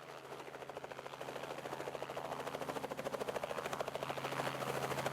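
Helicopter rotor blades chopping at a fast, even beat over a steady engine hum, steadily growing louder.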